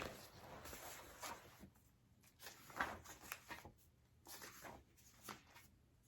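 Faint rustling and handling noises of a picture book being picked up and opened, in brief scattered scrapes and rustles.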